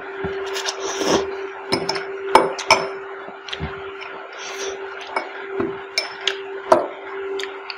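Metal spoon clinking and scraping against a glass dessert bowl as instant noodles are scooped, in sharp, irregular clicks, along with slurping and chewing of the noodles. A steady low hum runs underneath.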